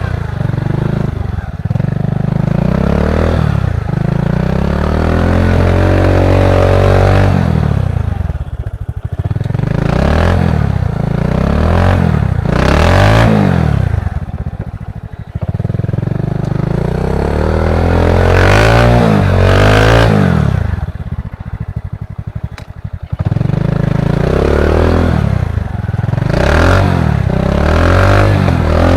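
Honda Supra X 125 (KPH) single-cylinder four-stroke engine in a trail bike, revving up and down over and over, its pitch rising and falling with the throttle, with a couple of brief drops in level where the throttle is closed.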